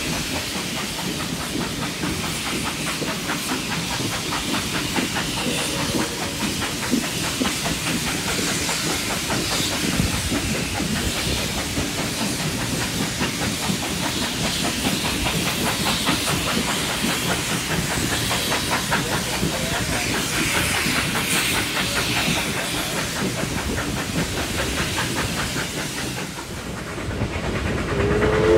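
Steam-hauled passenger train running at speed, heard from a carriage window: a steady rush and hiss of travel with wheels clattering on the rails. The locomotive's steam whistle starts to sound right at the end.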